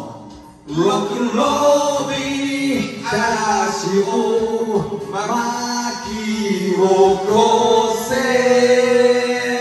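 Male vocals singing a rock'n'roll song into microphones over a karaoke backing track. The singing comes in about half a second in, after a short gap.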